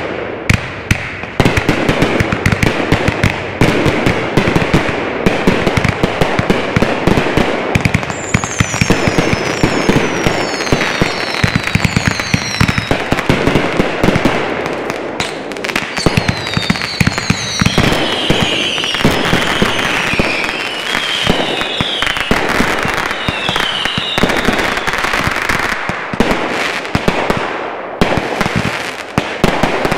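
Consumer fireworks firing in rapid succession: aerial shells and cakes launching and bursting in dense, overlapping bangs and crackles. A run of whistles falling in pitch sounds through the middle of the barrage.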